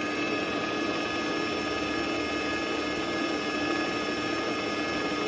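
Kenwood Chef stand mixer's electric motor running steadily with a constant whine, driving its pasta-roller attachment as a sheet of noodle dough is fed through.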